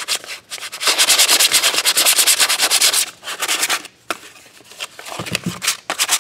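Hand sanding: a folded sheet of sandpaper rubbed back and forth over a hardwood block in fast, even strokes. It starts about a second in and stops about three seconds in, with only fainter, uneven scraping after that.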